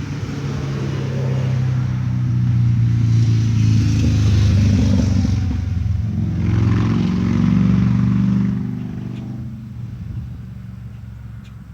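An engine running with a steady low hum. It grows louder, shifts pitch about six seconds in, then fades away near the end, like a motor vehicle going by.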